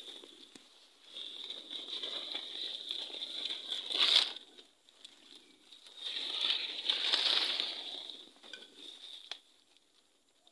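Dry leaf litter and palm fronds rustling and crunching as someone pushes on foot through dense undergrowth, in two long stretches, with a sharp snap about four seconds in.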